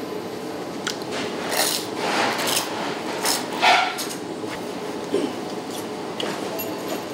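A person eating close to the microphone: a few short, rough mouth and food sounds of chewing tempura and buckwheat noodles, the loudest a little after a second and again around three and a half seconds in, over a steady low room hum.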